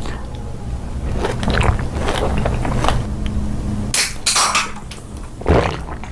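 Close-miked eating sounds: biting and chewing, with a louder crisp bite about four seconds in, over a low steady hum.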